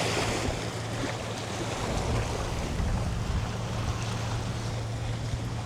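Wind rushing across the microphone, with waves on the shore and a low steady hum underneath.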